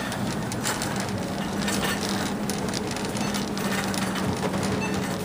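Shopping cart rolling and rattling over a supermarket floor, a steady rumble with a low, even hum under it.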